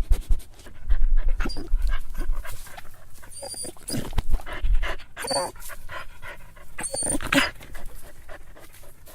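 A dog whimpering and crying: irregular breathy sounds, broken by a few brief high-pitched whines.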